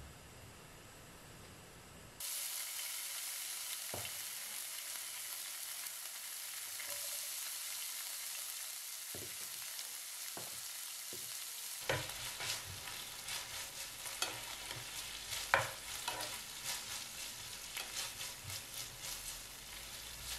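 Chopped bacon sizzling as it fries in hot oil in a frying pan. The sizzle starts suddenly about two seconds in as the bacon goes into the oil. From about twelve seconds in, a wooden spatula stirs it, with scraping and clicks against the pan over the sizzle.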